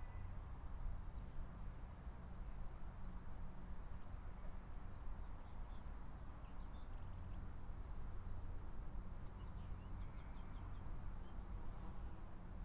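Steady low outdoor background noise with faint bird calls now and then.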